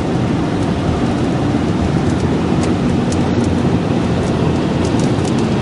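Steady road and engine noise inside a moving car's cabin, with a few faint light ticks.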